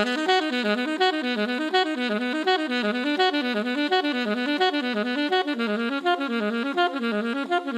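Background music: a melodic instrument playing a quick, repeating up-and-down figure of short notes.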